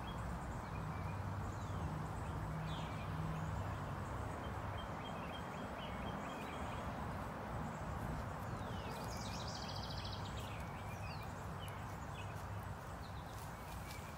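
Farmyard ambience: a steady hiss with a low hum, with faint bird chirps here and there and a short run of chirping about nine seconds in.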